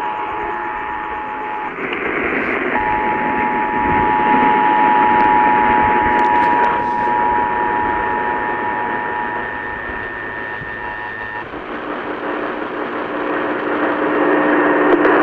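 Emergency Alert System attention signal, the steady two-tone alarm at about 853 and 960 Hz, received over broadcast radio under heavy static hiss. It cuts out for about a second near the 2-second mark, resumes, and stops about 11 seconds in, leaving hiss.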